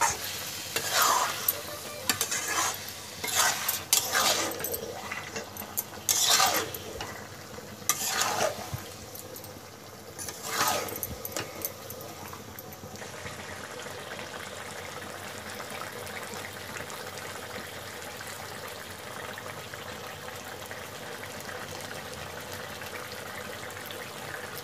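A metal spatula scraping and stirring cabbage, potatoes and fish head in a kadhai (wok) in repeated strokes over a sizzle. About halfway through the stirring stops and only a steady sizzle remains.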